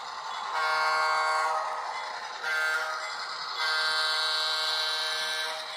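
Diesel locomotive horn from the sound decoder of an HO-scale Walthers Mainline EMD SW7, played through the model's small speaker: a long blast, a short one, then a longer one.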